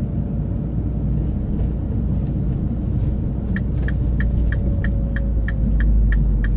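Mini Cooper convertible driving slowly, its engine and road noise a steady low rumble heard from inside the cabin. About halfway through, the turn indicator starts ticking evenly, about three clicks a second, as the car signals to turn off.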